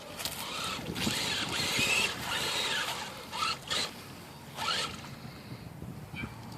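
HPI Crawler King RC rock crawler driving through creek water: its 27-turn electric motor whines, rising and falling with the throttle, over the rush and splash of water at the tires. There are short louder bursts about three and a half and four and a half seconds in.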